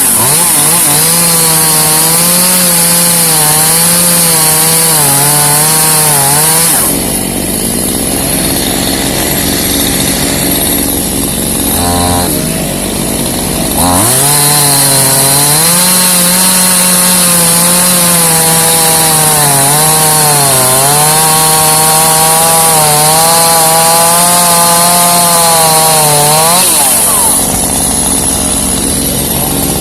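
Two-stroke chainsaw cutting pecan wood at high revs, its engine note wavering as the bar bogs and recovers in the cut. About seven seconds in it drops to idle, blips the throttle once, then cuts again for about thirteen seconds before dropping back to idle near the end.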